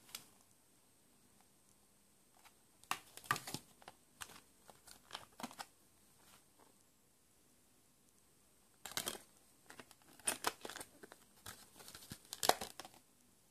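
Plastic CD album packaging and a glossy photo page being handled: crinkling and clicking in short bursts with quiet gaps between. Near the end, fingers press and work a disc on its clear plastic tray.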